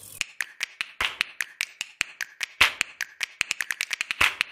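Percussive intro beat: a fast, even run of sharp finger-snap-like clicks, about five a second, with a heavier hit about every second and a half.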